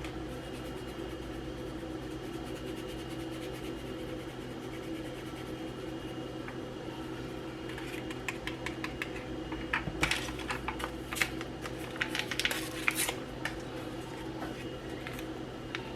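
Small packets of Sazón Goya seasoning being torn open and shaken: a run of quick crinkly clicks and ticks about halfway through, over a steady low kitchen hum.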